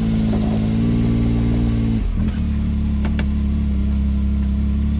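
Can-Am Maverick X3 Turbo RR side-by-side's turbocharged three-cylinder Rotax engine running at low speed, heard from the seat. Its note steps lower about two seconds in, and a single click comes about a second later.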